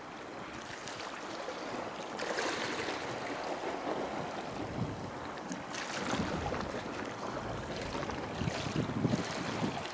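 Wind rushing over the microphone together with sea water sloshing, swelling louder a few times.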